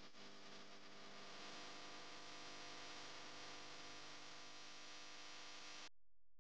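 Near silence: a faint steady hum, cutting out to dead silence for a moment near the end.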